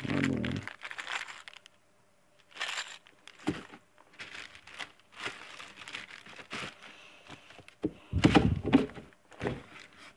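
Plastic bags and mailer packaging crinkling and rustling as parcels are handled and shuffled, with scattered knocks. A louder low thump comes about eight seconds in.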